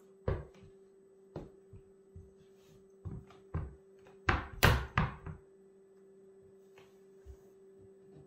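Footsteps of brown Tamaris lace-up ankle boots with chunky lug soles on a wood-plank floor: irregular heel and sole thuds and knocks, the loudest a quick cluster of three about four and a half seconds in.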